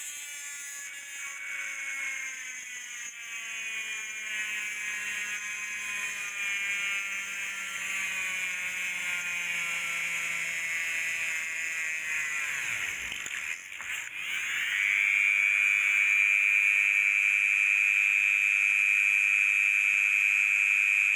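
Small high-speed electric motor whining, its pitch shifting at first, then a louder steady high whine from about two-thirds of the way in.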